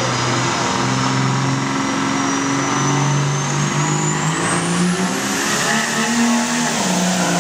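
Diesel pickup truck engine running hard at full throttle, pulling a weight sled, with a turbocharger whistle that climbs steadily in pitch and levels off near the end.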